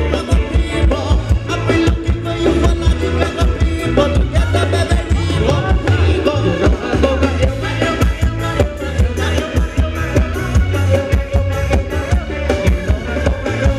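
Live Thai ramwong dance-band music: a steady beat with heavy bass and a singer over the band.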